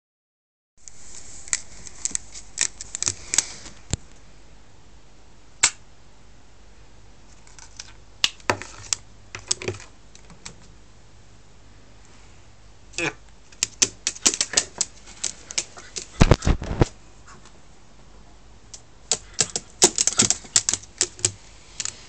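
A Congo African grey parrot tapping and pecking its beak against a window sill and frame: runs of sharp, rapid clicks with short pauses between.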